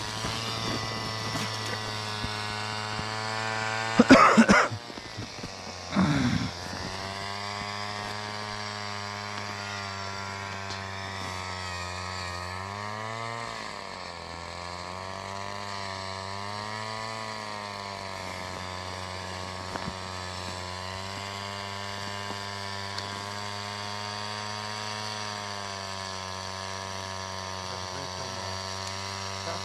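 A small engine running steadily, its pitch dipping and wavering for a few seconds about halfway through. Loud handling knocks and scrapes cut in about four and six seconds in.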